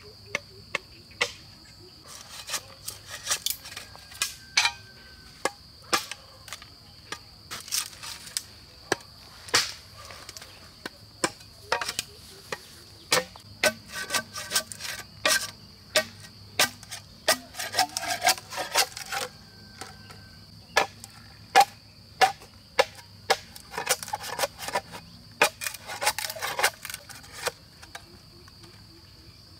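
Irregular sharp strikes of a tool on wood, about one or two a second with busier stretches. Beneath them runs a steady high-pitched insect drone.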